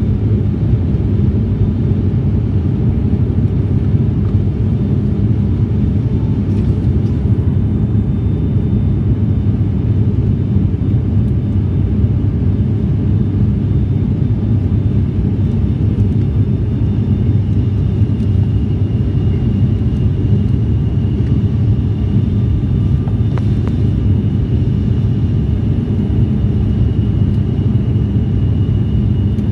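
Steady low cabin drone of a turboprop airliner in level flight, from its engines and propellers, with a steady pitched hum running through it. A faint thin high whine joins a little past halfway.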